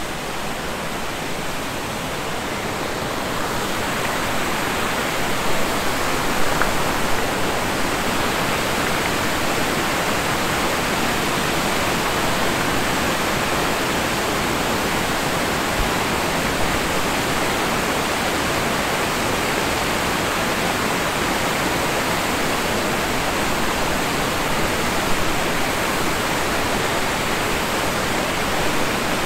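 Steady rushing of water pouring over a weir and down white-water rapids, growing a little louder about four seconds in.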